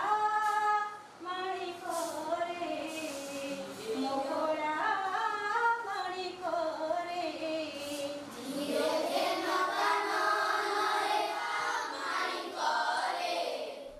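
A woman and a class of schoolchildren singing a song together. The singing grows fuller about two-thirds of the way through.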